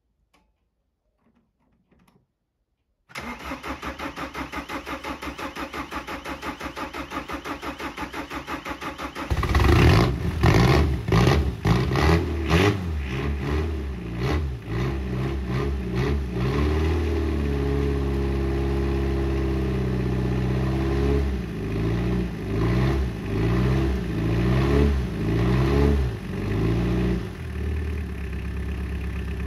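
Ford Escort mk4 Express 1.8 diesel engine's first start after 22 years standing. The starter cranks it with a steady rhythmic chugging for about six seconds; the engine catches about nine seconds in and runs roughly, its revs rising and falling unevenly. Near the end it settles into a steadier idle.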